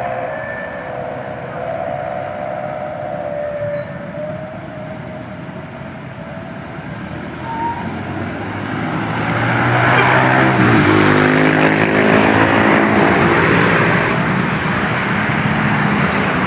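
Intercity bus horn sounding a held multi-tone note for the first few seconds, then a bus driving past close by. Its engine and tyre noise rise to the loudest point about ten seconds in and stay loud for several seconds.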